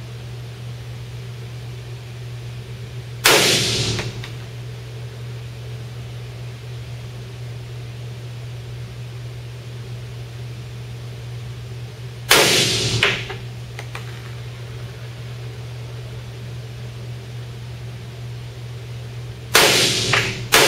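Three single shots from a Norinco .45 ACP Commander-size 1911 pistol, fired slowly, roughly eight seconds apart, each echoing briefly in a small enclosed range. A steady low hum runs underneath.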